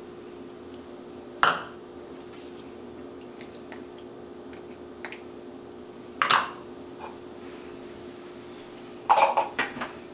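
Canned pumpkin purée being scraped from a plastic measuring cup with a silicone spatula into a glass Pyrex mixing bowl of batter, with two sharp knocks of utensils against the bowl about a second and a half in and about six seconds in, and a short clatter near the end. A low steady hum runs underneath.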